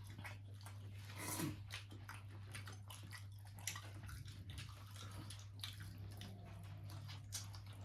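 Close-up eating sounds of fish curry: wet chewing and lip-smacking clicks, scattered irregularly, over a steady low hum.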